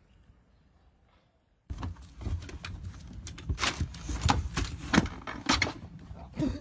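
Irregular knocks, clatters and thumps of a dog clambering and scrabbling into a hollow plastic storage box, starting suddenly after a near-silent first couple of seconds.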